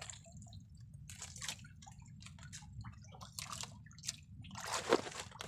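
Water dripping and sloshing in short, irregular splashes as a wet nylon handline is pulled in by hand with a fish on, a little louder near the end. A steady low rumble runs underneath.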